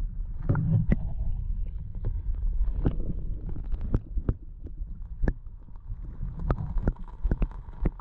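Muffled underwater sound through a submerged camera: a low rumble of moving creek water with irregular sharp clicks and knocks, a little quieter after about four seconds.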